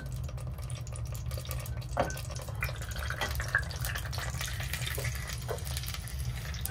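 Raw chicken pieces scraped with a spatula from a bowl into a glass pot with a little oil: soft wet sliding and scraping with a few light taps, the sharpest about two seconds in, over a steady low hum.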